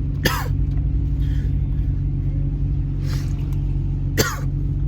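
Steady engine and road rumble inside a moving car's cabin. Two brief sharp sounds with a falling pitch break through it, one just after the start and one near the end.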